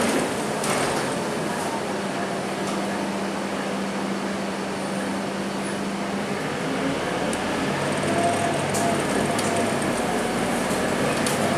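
Scania K230UB bus's five-cylinder diesel engine running, heard from inside the passenger cabin over road noise. A steady engine tone holds for the first half, and the engine note changes to a lower, shifting tone about seven seconds in.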